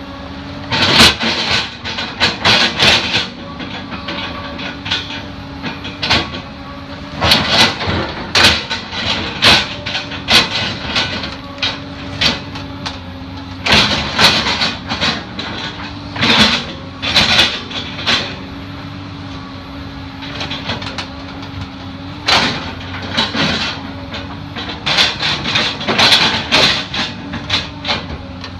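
Excavator engine running with a steady hum while its toothed bucket digs into soil and roots, with repeated bursts of scraping and knocking as the bucket bites in and pulls.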